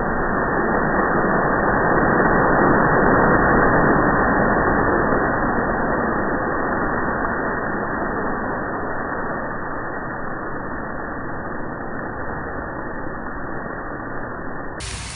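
Grease-fire explosion fireball, slowed down: a deep, muffled rush of burning flame that swells over the first few seconds and then slowly dies away. Near the end the sound turns brighter as the playback returns to normal speed.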